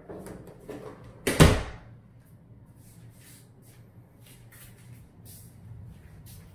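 A closet door swung shut, latching with one sharp knock about a second and a half in, followed by faint soft scuffs.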